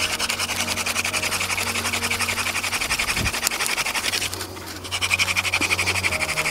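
Wooden hand-drill spindle spinning in a hearth board in a gas pedal friction-fire drill: a fast, rasping wood-on-wood grind, with a short break about four and a half seconds in.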